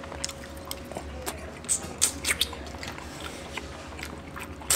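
Close-up eating sounds: chewing and mouth noises with light clicks and scrapes of a metal fork against a plate, several sharp clicks coming together about two seconds in.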